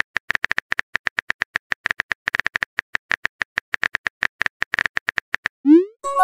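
Smartphone keyboard typing clicks, short and rapid at about seven a second, as a text message is typed out. Near the end a short rising swoosh plays as the message is sent.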